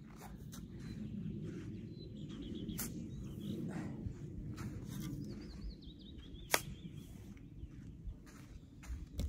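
A small bird singing two short wavering phrases over a low rustling rumble, with a few sharp knocks, the loudest about six and a half seconds in.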